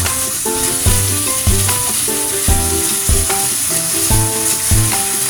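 Chicken wings sizzling as they fry in oil with ginger, garlic and onion in a pan. Background music with a melody and bass notes plays alongside.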